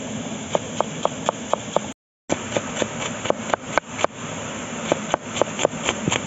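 Chef's knife chopping yellow bell pepper on a wooden cutting board: quick, even knife strikes about four a second, breaking off briefly about two seconds in.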